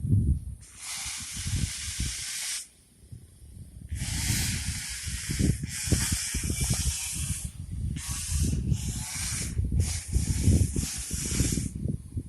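Gusty rumbling noise, like wind buffeting the microphone, with long stretches of loud hiss that switch on and off abruptly.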